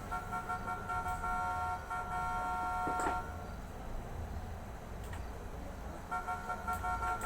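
A horn-like chord of several steady tones sounds for about three and a half seconds, then starts again shortly before the end, with a sharp click just before the first blast stops.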